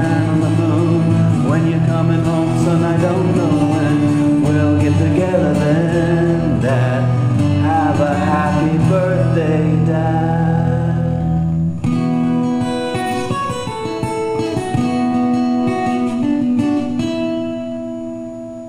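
Closing bars of a song on acoustic guitar, with a voice singing over strummed chords. About twelve seconds in, the low notes drop out and the guitar plays ringing single notes that fade out near the end.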